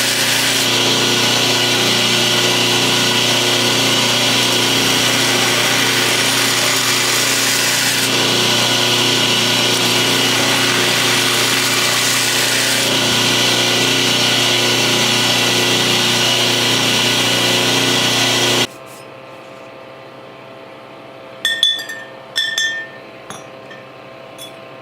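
A workshop power tool runs steadily and loudly with a constant motor pitch, then cuts off abruptly about three quarters of the way through. Afterwards, two short ringing clinks and a few faint ticks sound against quiet room tone.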